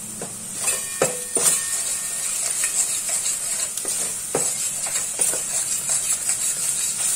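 Spice and coconut-onion paste sizzling in hot oil in a stainless steel pot while a metal spoon stirs and scrapes it, the paste being sautéed to cook out its raw taste. A steady sizzle runs under scattered clicks of the spoon against the pot, with a couple of sharper knocks about a second in.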